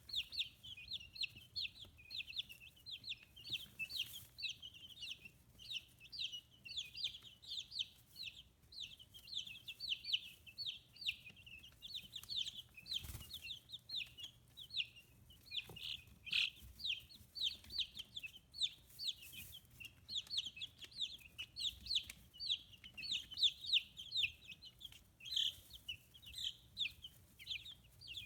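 A group of 15-day-old chicks peeping continuously: many short, high chirps that each drop in pitch, overlapping several times a second.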